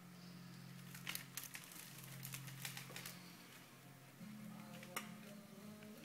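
Faint steady low hum of aquarium equipment, with scattered light clicks and ticks. A few faint held tones come in near the end.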